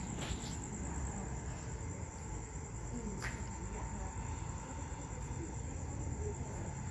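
Night insects chirring: one thin, high, steady trill over a low background rumble, with a single sharp click about three seconds in.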